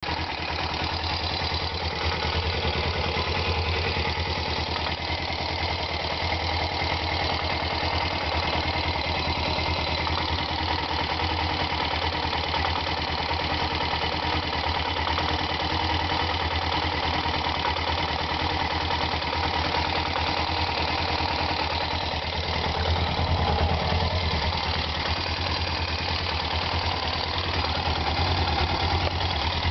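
A 1999 Suzuki GS500's air-cooled parallel-twin engine running steadily. Toward the end a soft knocking comes from the engine, which worries the owner; it began after a loud pop from the engine.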